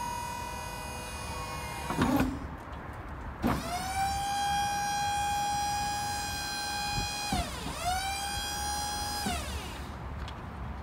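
Waltco liftgate's electric hydraulic pump motor whining as the gate is worked by remote: one run stops with a loud clunk about two seconds in, then the motor runs twice more, its pitch rising as it spins up and falling as it stops.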